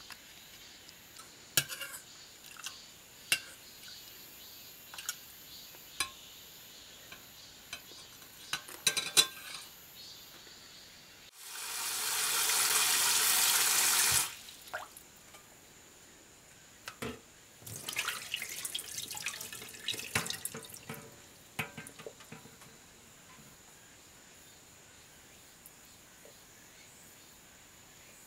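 A metal spoon clinking now and then against a stainless steel saucepan of perilla-leaf juice. About eleven seconds in, a tap runs into a stainless steel bowl for about three seconds. A few seconds later comes a short spell of clatter and splashing as the saucepan is set down into the bowl of water.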